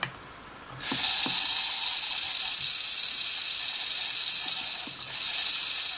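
Small brushed motor driving a plastic toy gearbox through an ESC, starting up about a second in and running fast with a steady high-pitched whine; the whine dips briefly near five seconds in.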